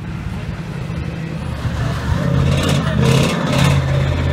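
Ride monster truck's engine running as it drives across a dirt track, growing louder about two seconds in as the truck comes closer.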